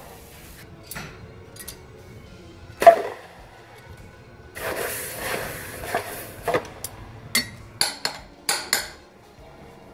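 Farrier's work with a steel horseshoe: a loud metal knock about three seconds in, then a hiss as the hot shoe is quenched in a bucket of water, followed by a quick run of sharp metallic clinks of shoe and tongs.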